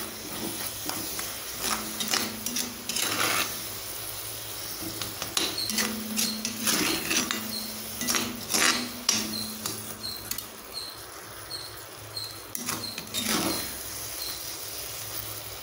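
Metal spatula scraping and stirring thick beetroot halwa around a heavy cast-iron kadai, in irregular strokes. The halwa has cooked down to near its final consistency and ghee is being stirred in a little at a time.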